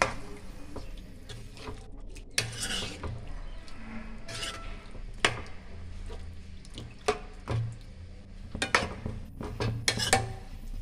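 Metal spoon stirring chicken pieces and yogurt in a non-stick frying pan: wet scraping with irregular clinks of the spoon against the pan.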